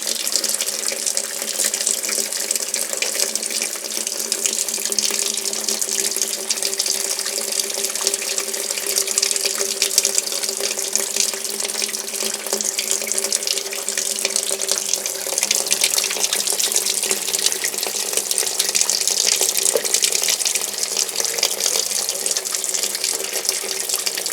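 Water running steadily into the tub of a Sanyo ASW-82HT fully automatic washing machine through its inlet as the machine fills at the start of a wash cycle.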